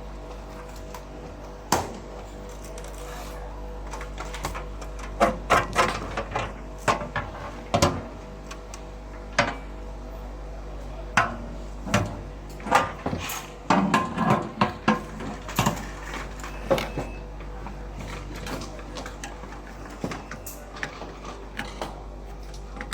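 Scattered sharp clicks and knocks of tools and small parts being handled during work on an inkjet coder's power supply, busiest in the middle stretch, over a steady electrical hum.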